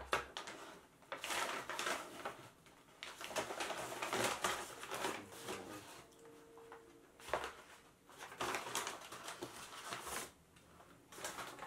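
Brown paper takeout bags rustling and crinkling in irregular bursts as food cartons and a paper-wrapped sandwich are pulled out and handled.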